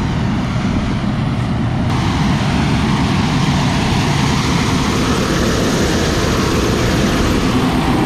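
Case IH 7088 combine harvesting corn, its engine and threshing machinery running steadily. It gets a little louder and brighter about two seconds in as it comes up close.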